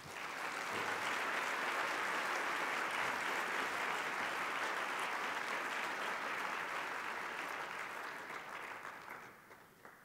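Audience applauding, steady at first, then dying away over the last couple of seconds.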